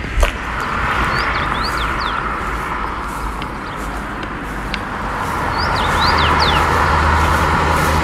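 Road traffic passing, its rushing sound swelling about a second in and again from about five seconds. Over it a bird sings two short phrases of quick high whistled notes, the roadside song of a common rosefinch.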